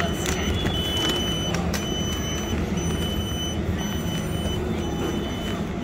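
Hyderabad Metro train heard from inside the carriage: a steady running rumble with a low hum, and a faint high tone that drops out and returns.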